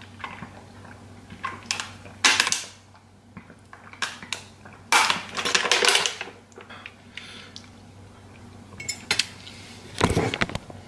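Thin plastic water bottle crinkling and crackling in the hand while someone drinks from it, with one longer crackle in the middle. A few knocks and rubbing near the end as the camera is handled.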